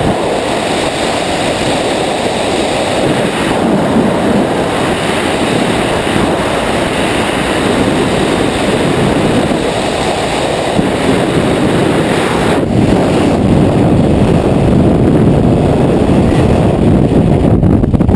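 Loud rush of freefall wind buffeting a wingsuit skydiver's camera microphone, steady and heavy in the low range. About two-thirds of the way in there is a short knock, after which the hiss in the upper range thins.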